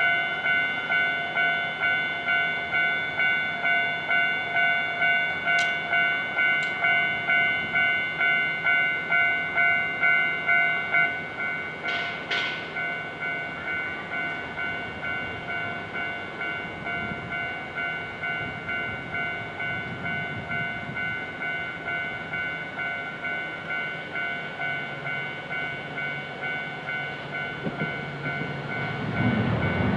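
Japanese railroad crossing warning bell ringing its repeated "kan-kan" in a steady rhythm, about one and a half strikes a second. It drops in level about eleven seconds in, and near the end the low rumble of an approaching train grows.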